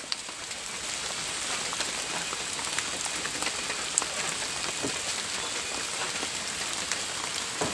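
Steady rain falling, a dense even hiss with scattered drop ticks, building up over the first second.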